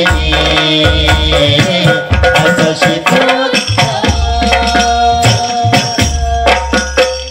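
An Indonesian rebana frame-drum ensemble with a jingling tambourine accompanies a man singing into a microphone, amplified through loudspeakers. Deep sustained drum booms and sharp hand slaps keep a steady rhythm under the sung melody.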